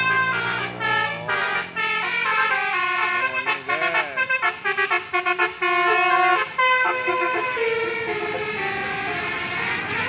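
Bus "telolet basuri" multi-tone horn playing a quick melody of short stepped notes, with a few rising-and-falling siren-like glides a few seconds in and a run of rapid staccato notes before a longer held note. Road noise from the passing bus grows near the end.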